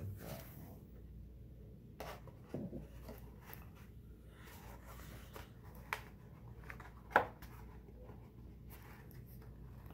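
Cardstock paper being handled and pressed with the fingers along glued seams: faint rustling and a few scattered small taps and crinkles, the sharpest about two-thirds of the way through, over a low steady hum.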